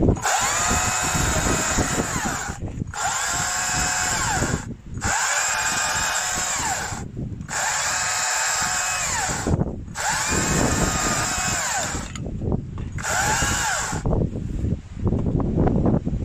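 Stihl MSA 200 C battery chainsaw cutting through a log in six short bursts of about two seconds each. Each burst whines up to speed as the trigger is pressed and winds down when it is released.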